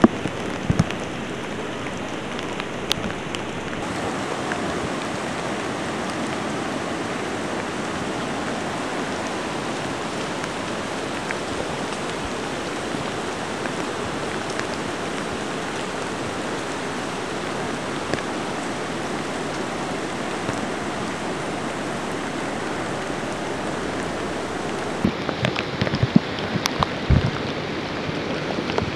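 Steady rain falling, with a scattering of sharp taps near the end.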